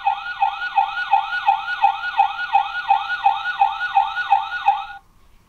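Toy fire engine's electronic siren sound effect: a fast yelping siren, about three rising-and-falling whoops a second, played from the toy's small speaker. It cuts off abruptly near the end.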